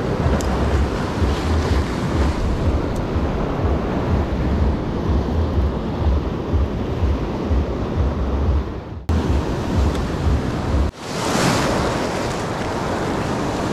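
Surf washing over shoreline rocks, with wind buffeting the microphone in gusty low rumbles. The sound cuts off abruptly twice, about nine and eleven seconds in; after the second cut the wash of the waves comes through clearer, without the wind rumble.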